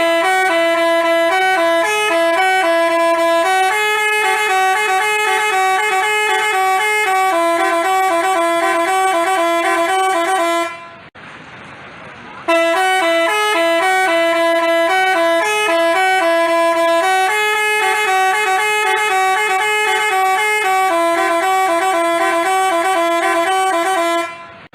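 Telolet horn (Basuri multi-tone bus horn) playing a stepping melody. It stops about eleven seconds in and starts the same tune again a second and a half later.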